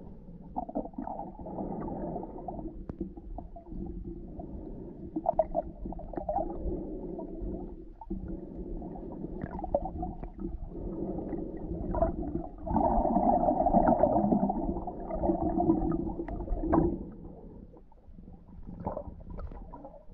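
Muffled underwater sound picked up by a camera held below the surface: low rumbling and swishing of water with scattered small clicks, swelling louder for a few seconds past the middle.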